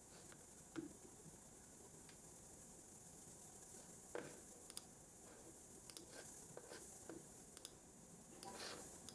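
Faint, scattered clicks and taps from a computer keyboard and mouse, irregularly spaced with a small cluster near the end, over a steady background hiss.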